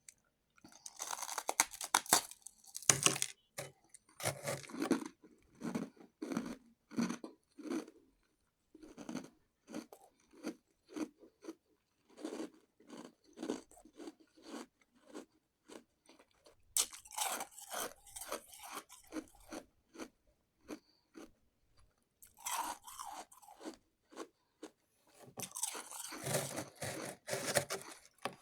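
Shaved ice being bitten and chewed close to the microphone. Dense crunching bursts come at the start, again in the middle and near the end, with steady rhythmic chewing at about two chews a second in between.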